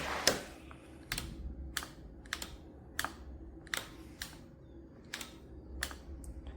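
A series of sharp plastic clicks, about a dozen at irregular intervals of roughly half a second: buttons being pressed on the EGO POWER+ cordless mower's control panel.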